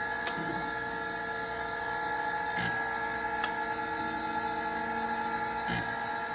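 Proth automatic surface grinder running in automatic mode: a steady machine hum and whine, with a short burst about every three seconds.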